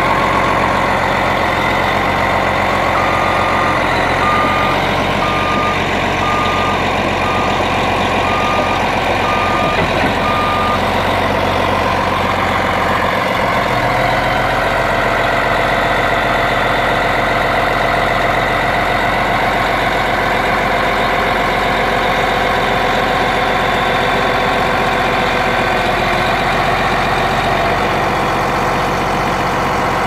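Caterpillar D8T dozer's C15 diesel engine running steadily. Its backup alarm beeps about once a second for some eight seconds, a sign that the machine is in reverse, then stops.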